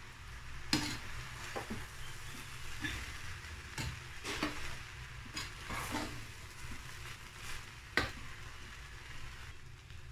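A steel spoon stirring and turning fried rice in a pot, scraping and knocking against the pot about once a second, with the rice sizzling in the pan over the flame.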